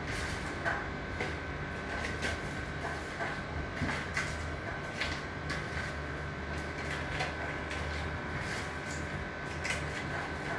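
Light, irregular clicks, knocks and rustles of kitchen scraps being picked from a tray and pushed into a plastic container for composting, over a steady background hum.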